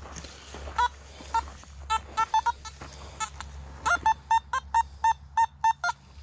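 Metal detector sounding short, same-pitch electronic beeps as the search coil is swept over the ground: a few scattered beeps, then a quick run of about ten in the last two seconds.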